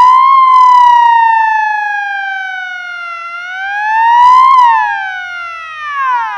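Ambulance siren wailing, its pitch climbing and falling in slow sweeps about four seconds apart, loudest at each peak. Near the end the pitch drops away steeply.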